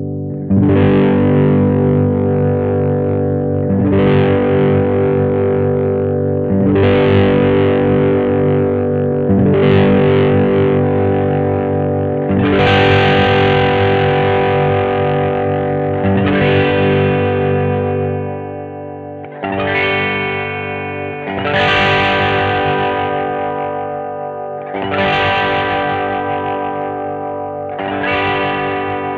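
1982 Vantage VE-550 electric guitar playing distorted chords. Each chord is strummed and left to ring, about ten of them, one every two to three seconds.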